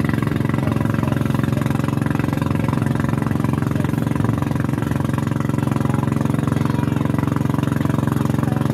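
Boat engine running at a steady speed, an even, unchanging hum throughout.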